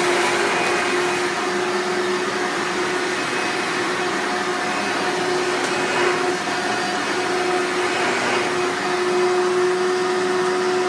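Hoover Legacy upright vacuum cleaner running steadily at full speed, a loud whine with a constant motor hum.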